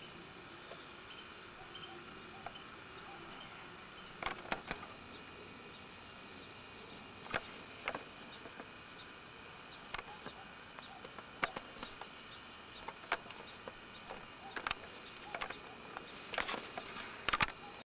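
Faint steady hiss with irregular sharp clicks and taps of the hand-held camcorder being handled, starting about four seconds in and coming more often and louder near the end as the camera is swung around.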